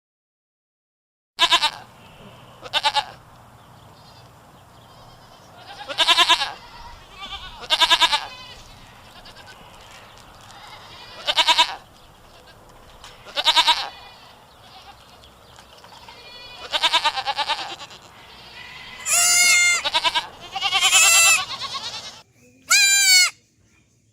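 Goats bleating: about ten separate calls spaced a second or more apart, starting after about a second and a half of silence. The calls near the end are longer, with a wavering, quavering pitch.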